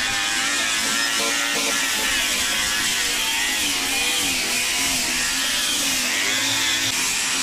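Small handheld electric rotary tool running with a bit in the bolt holes of an aluminium tube, cleaning out corrosion; its motor pitch wavers up and down as the bit bites and eases off.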